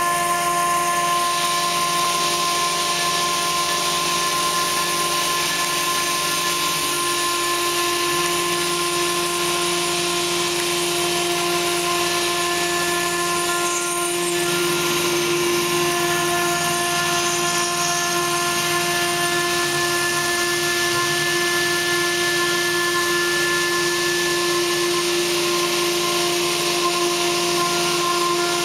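Viccam stone CNC router's spindle engraving a wet marble slab, its bit grinding into the stone: a steady whine at several fixed pitches over an even hiss.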